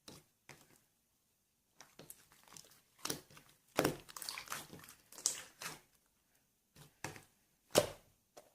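Clear slime being squeezed and stretched by hand, giving irregular sticky clicks and crackles, with a louder snap about four seconds in and another near the end.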